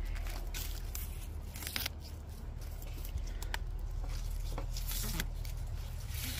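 Garlic mustard being picked by hand: leaves rustling and stems snapping in a string of short, sharp crackles.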